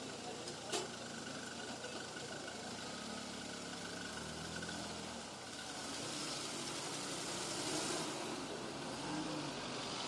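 Cars driving slowly past, their engines and tyres running steadily. A single sharp click comes less than a second in.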